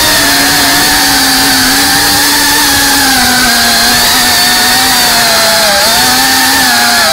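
FPV quadcopter's electric motors and propellers whining from on board, a loud steady buzz over a hiss. The pitch wavers slightly and dips a little a few times as the throttle changes through the turns.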